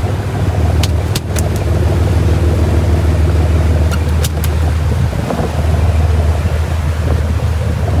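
Fishing boat's engine running with a steady low drone. A few sharp clicks come about a second in and again around four seconds.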